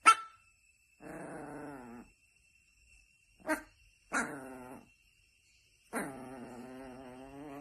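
A dog barking: three short, sharp barks, one at the start and two more about three and a half and four seconds in. Between them come two drawn-out, wavering growls, each a second or more long.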